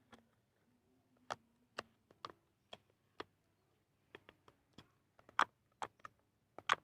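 Sticky slime being squeezed and worked by hand, giving sharp, irregular clicks and pops, about two a second.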